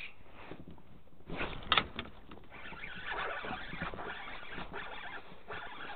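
A few sharp clicks and knocks of rod handling about a second and a half in, then a fishing reel being cranked steadily to bring up a hooked lake trout.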